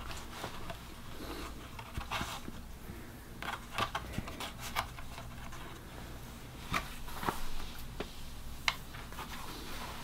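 Hands working over a framed painting on a table: soft rustling with a handful of light clicks and taps from small objects being handled and set down, over a faint steady low hum.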